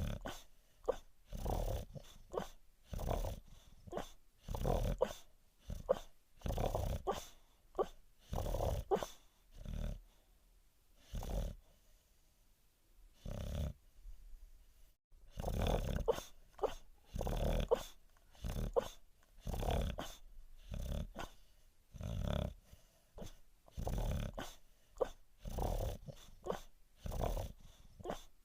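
A sleeping dog snoring and making low dream noises, one breath-sound about every one to two seconds, with a quieter stretch midway.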